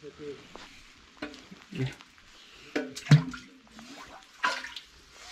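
Fishing magnet on a rope dropped into water at the bottom of an old concrete well: a series of splashes and knocks, the loudest about three seconds in.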